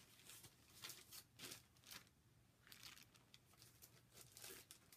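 Faint rustling and crinkling of cross-stitch kit packaging being handled, in several short separate bursts.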